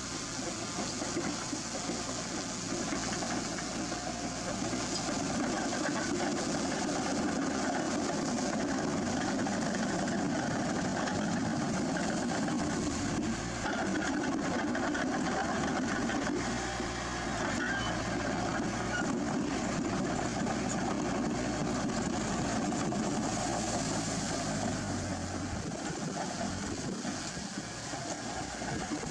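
A heavy machine's engine running steadily, a continuous rumbling drone with a slight dip in level near the end.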